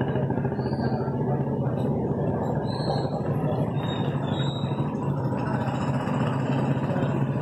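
An engine running steadily, a low, even hum with a fast pulsing texture.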